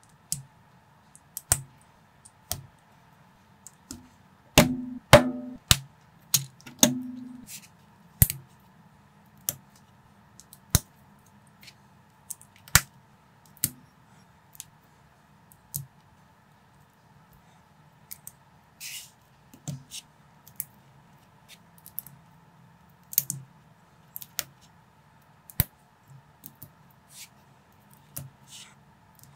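Small plastic building bricks clicking and snapping together as pieces are pressed on by hand, in irregular single clicks with a busier, louder cluster of clicks and rattles about five seconds in. A faint steady hum runs underneath.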